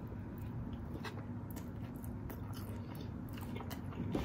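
Close-miked chewing of a mouthful of thin-crust pizza, with scattered small crunches and mouth clicks.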